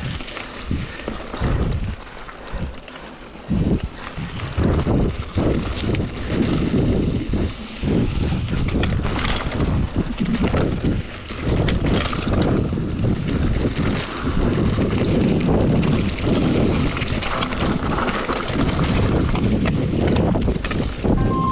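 Mountain bike riding fast over a dirt trail: wind rushing over the microphone, with tyre noise and the bike rattling and knocking over bumps. A brief high tone sounds right at the end.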